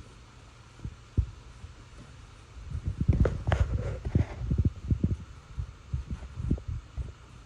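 Dull, irregular low knocks and scuffs of a wool stain applicator on its handle working against wooden deck spindles and rails, busiest in the middle.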